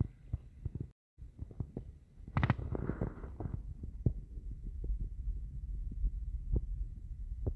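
Handling noise and low rumble on a handheld phone's microphone: irregular soft thumps over a low rumble. The sound cuts out briefly about a second in, and a louder rustle comes a couple of seconds later.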